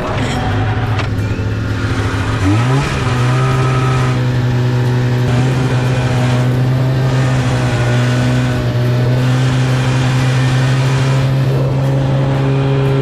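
Snowmobile engine starting and running. About two and a half seconds in it speeds up, then holds a steady, even pitch.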